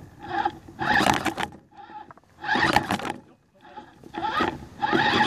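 RC rock crawler's electric motor and gearbox whining in short stop-start bursts of throttle, about half a second each, with sharp clacks as the tyres and chassis bang on the wooden rungs while it climbs.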